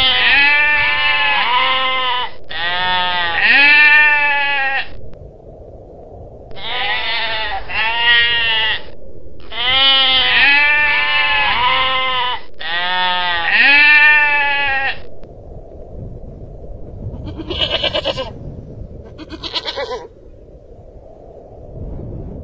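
Long-tailed goral bleating: a run of loud, repeated bleats, each rising and then falling in pitch, with a short pause about five seconds in. They stop about fifteen seconds in and give way to a couple of quieter, quavering bleats.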